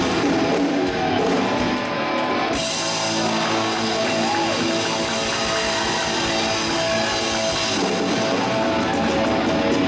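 Live rock band playing an instrumental passage, led by guitar over drums, with no singing.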